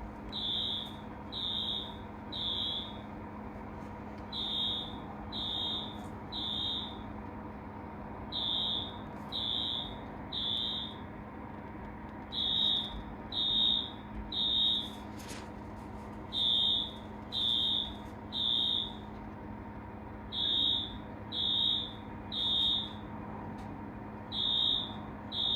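Fire alarm going off in a false alarm: high-pitched beeps in groups of three, each group repeating about every four seconds, over a steady low hum.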